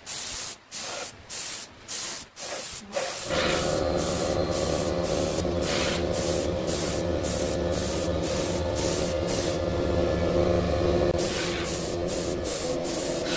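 Short, regular spray hisses, about two a second. About three seconds in, a wood lathe starts and runs with a steady hum under the continuing hisses.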